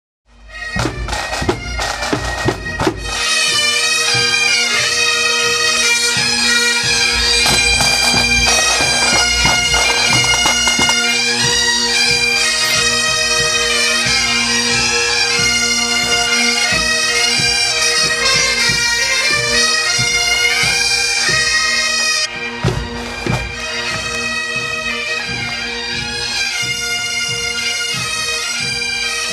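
Bagpipes playing a tune over their steady drone, with drumbeats, heaviest in the first few seconds and again briefly about two-thirds of the way through.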